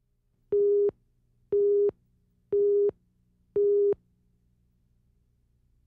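Countdown leader beeps on a TV news tape slate: a steady tone beeping once a second, four times, stopping about four seconds in.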